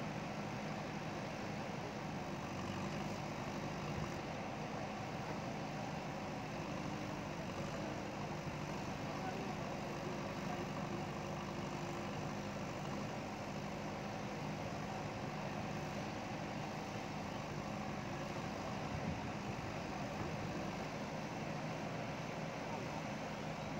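JCB ecoXcellence backhoe loader's diesel engine running steadily at an even speed.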